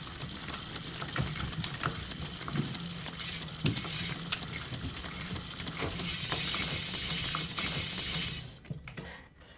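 Rewind sound effect: a steady crackling whir with a faint low hum and many small clicks, running for about eight and a half seconds before trailing off near the end.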